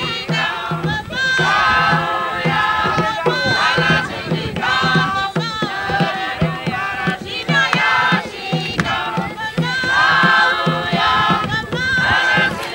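A group of villagers singing and chanting together, with high voices over a steady beat on a large hand drum.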